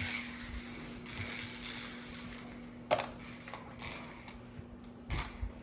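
Small remote-control toy car running on a plastic toy track: light clicking and rattling, with a sharp clack about three seconds in and another clack with a thump near the end.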